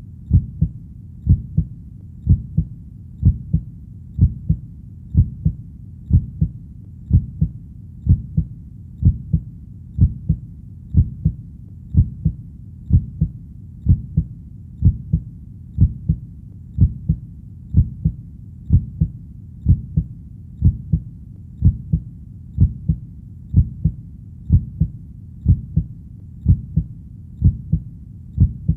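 Heartbeat playing at a steady, even pace of about one beat a second, each beat a low double thump ('lub-dub').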